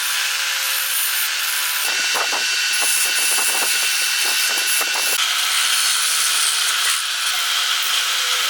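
Wood being worked with a woodworking tool: a continuous noise that changes abruptly about two and five seconds in, with a run of short, irregular strokes between.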